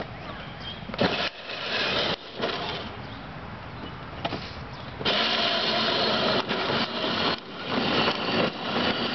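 Battery-powered ride-on toy Jeep driving on asphalt: its electric motor and gearbox whir and its hard plastic wheels rumble on the pavement, louder from about five seconds in.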